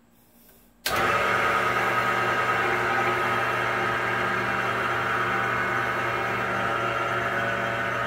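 Wood lathe switched on about a second in, its motor then running at a steady speed with an even hum and whine, spinning a pen blank on its mandrel for finishing.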